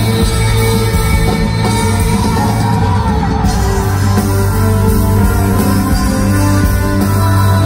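Live rock band playing in a large arena: electric guitars, bass, drums, keyboards and violins, with singing.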